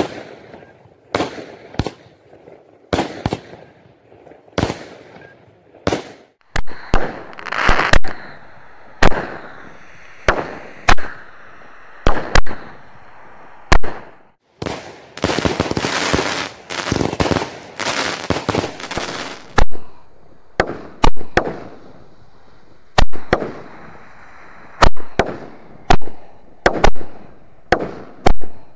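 Consumer aerial fireworks going off in quick succession: a long series of sharp bangs, each trailing off, with stretches of dense crackling in between.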